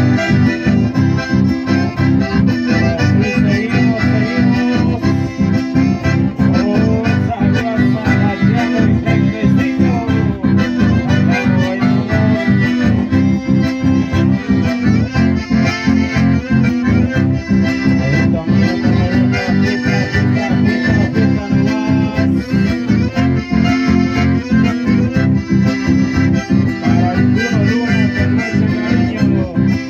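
Live chamamé music: two accordions carry the melody over acoustic guitars keeping a steady, close-set rhythm.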